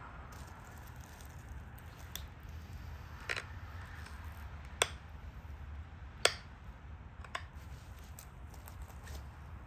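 Sharp clicks of stone flakes snapping off a Dalton point under pressure flaking, about five spread over several seconds, the two loudest near the middle, over a low steady hum.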